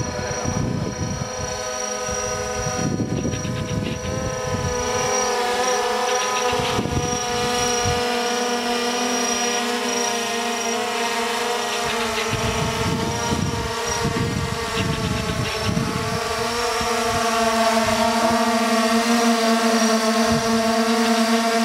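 DJI Phantom 4 Pro quadcopter, carrying a sprayer, hovering and flying with a steady multi-tone propeller whine that grows louder in the last few seconds as it comes closer. Gusts of wind rumble on the microphone.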